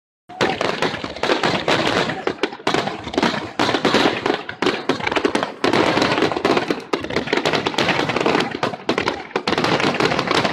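Fireworks going off in a rapid, dense barrage, with many overlapping bangs and crackles following one another without pause.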